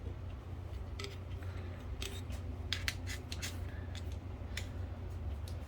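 Scattered light clicks and taps, about a dozen short ones at uneven spacing, from typewriter parts being handled, over a steady low hum.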